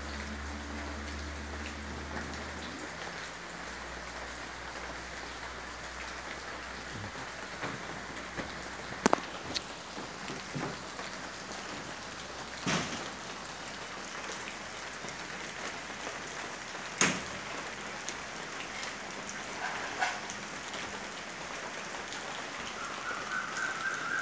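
Steady rain falling on surfaces, with a few sharp clicks and knocks standing out. Near the end a bird chirps in a short run of notes.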